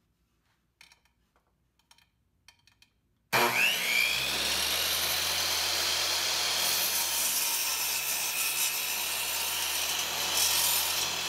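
A few faint taps, then about a third of the way in a Delta 10-inch power miter saw starts up suddenly with a brief rising whine. It runs steadily at full speed as its blade is brought down to crosscut a 3/4-inch poplar board.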